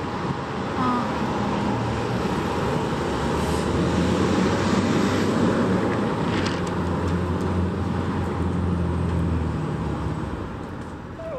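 City street traffic noise: road vehicles passing with a steady low engine hum, strongest midway through.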